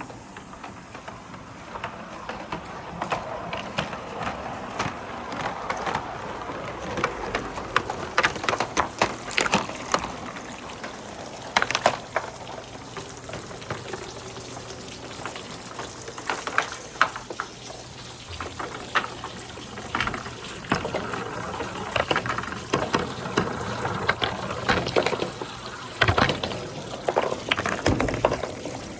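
Balls rolling down a water-filled rain-gutter marble run: a continuous splashing wash of running water, with many sharp clacks and knocks as the balls strike the gutters.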